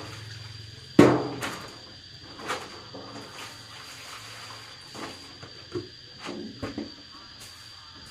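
A sharp knock about a second in, followed by several lighter knocks and handling noises, over a steady thin high tone.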